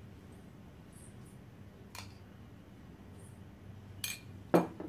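A metal spoon clicking against a glass bowl as apple filling is scooped out: one light click about two seconds in, then two close together near the end, the last the loudest, over a faint steady hum.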